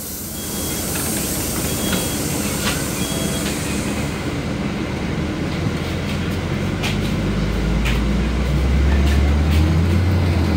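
Inside a LiAZ city bus: a hiss of air with three short beeps in the first few seconds, as at the doors closing. Then the engine's low drone rises and grows louder as the bus pulls away from the stop.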